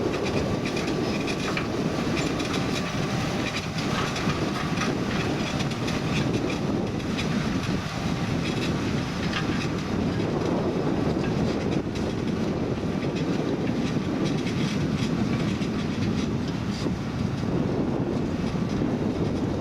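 John Deere 7280R tractor running steadily under load while pulling an eight-furrow Kverneland plough, with scattered clicks and knocks over the engine drone.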